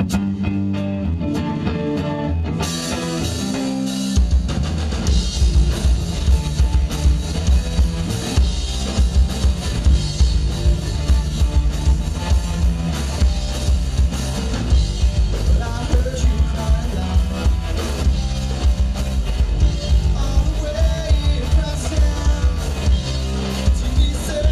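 Live rock band (electric guitar, bass guitar and drum kit) playing a song. It opens with guitar and bass notes alone, drums and cymbals come in a couple of seconds in, and from about four seconds the full band plays on with a steady driving kick-drum beat.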